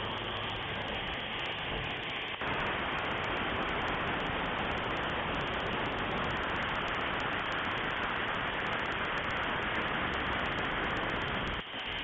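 Factory machinery running with a steady, loud hiss-like noise. It dips briefly about two and a half seconds in and cuts off sharply near the end.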